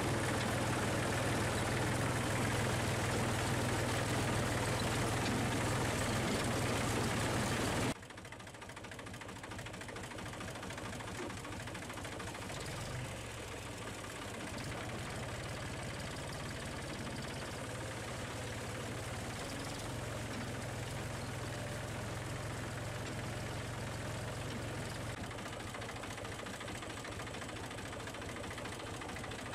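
A tractor engine running steadily, heard close from the driver's seat as it drives through floodwater. About eight seconds in the sound cuts abruptly to a quieter, steady engine hum of a motorcycle riding through shallow floodwater.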